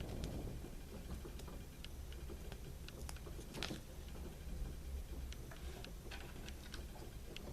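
Scattered light clicks and taps of small plastic toy parts being handled, over a steady low hum.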